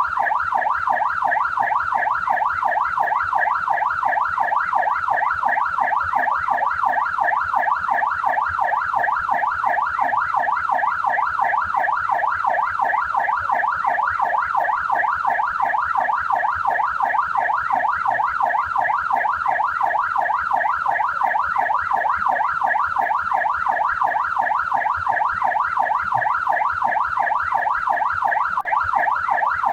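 Australian police car siren sounding a fast rising-and-falling wail, its pitch sweeping up and down about two to three times a second without a break.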